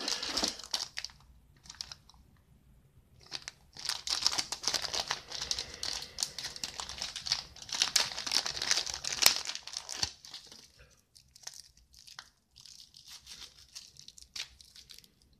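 Thin polyethylene accessory bags crinkling and rustling in the hands as they are sorted and unwrapped. The crinkling is loudest from about three to ten seconds in, then turns softer and sparser as plastic film is peeled off a small charger adapter.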